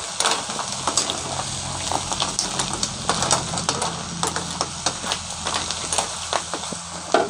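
Green mussels in their shells being stirred with a metal ladle in a large metal wok: shells clattering against each other and the pan over a steady sizzle, with many sharp clicks throughout.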